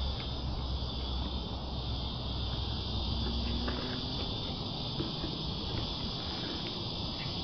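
Cicadas droning in the creekside trees, a steady unbroken high buzz. A low rumble under it stops about four seconds in.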